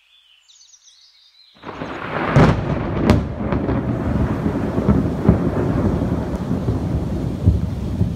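Thunderstorm: thunder rumbling heavily and continuously over rain. It starts suddenly about one and a half seconds in, with two sharp cracks soon after.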